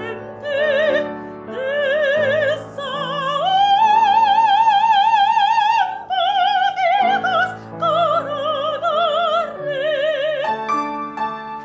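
A soprano singing with wide operatic vibrato over piano accompaniment, holding a long high note in the middle. Near the end the voice stops and the piano carries on alone.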